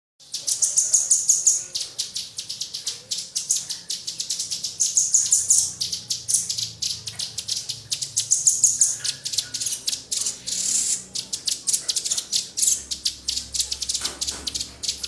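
Small songbird giving a rapid, high-pitched chattering call, a fast run of short clicking chirps in phrases that swell and fade; it starts suddenly, and a faint low hum joins near the end.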